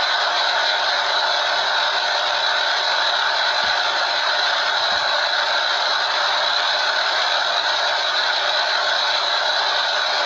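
A steady, unchanging hiss of noise, with two faint low knocks about three and a half and five seconds in.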